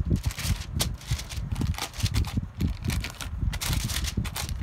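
Black glitter slime squished and kneaded by hand, giving a fast run of sticky clicks and crackles over a low handling rumble.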